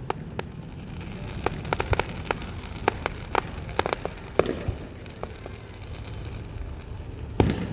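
Fireworks display going off: a scattered run of sharp cracks and pops, with a louder bang about four seconds in and the loudest boom near the end.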